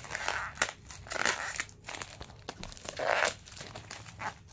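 Holographic plastic bubble mailer crinkling in several short bursts as hands handle it and work it open.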